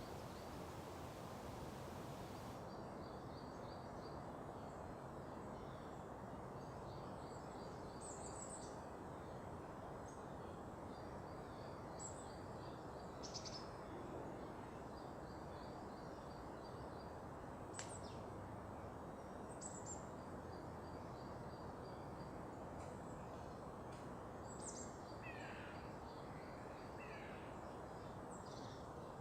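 Small birds calling: short runs of quick high notes repeating every few seconds, with some sharper single chirps, over a steady low rushing background noise.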